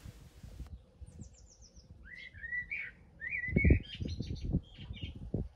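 A songbird singing: a quick high trill about a second in, then a run of warbling chirps, with a few dull low thuds in between.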